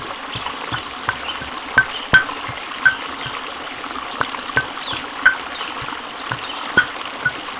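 Water bubbling, with a steady hiss and irregular sharp pops of bursting bubbles a few times a second.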